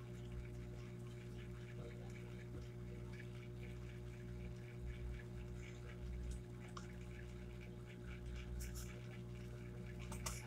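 Steady low electrical hum. A few faint taps and rustles come near the end as the spiral-bound sketchbook and its paper are handled.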